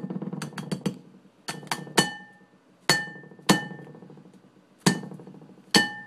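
A spatula knocked repeatedly against a plate to shake off stuck, melted marshmallow: about seven sharp clinks at uneven intervals, each ringing briefly.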